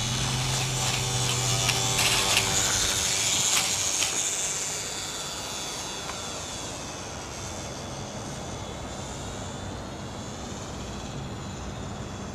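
Electric motor and propeller of a small two-channel RC high-wing model airplane whining at full power as it takes off, with a few knocks in the first few seconds. After about four seconds the whine drops to a fainter, shifting tone as the plane climbs away.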